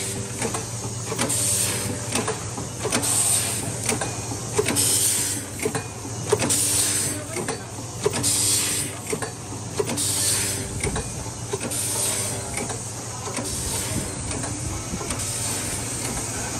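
Automatic horizontal premade-pouch packing machine with a cup filler running: a steady motor hum with clicking mechanisms, and a hiss of compressed air from its pneumatic cylinders about every 1.7 s, one cycle per pouch at about 35 pouches a minute. The hissing grows weaker in the last few seconds.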